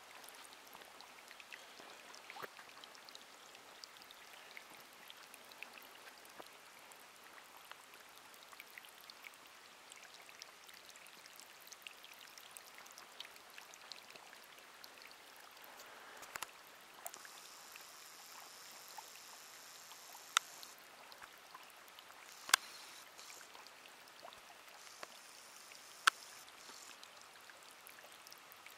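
Faint, steady trickle of mineral spring water running over travertine, full of tiny ticks. Three sharp clicks stand out in the second half.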